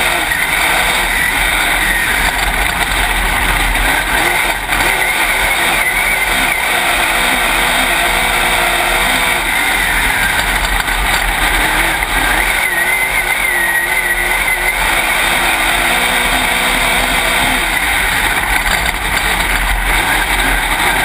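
Dirt late model race car's V8 engine running loud inside the open cockpit, its pitch rising and falling, under a heavy wash of noise.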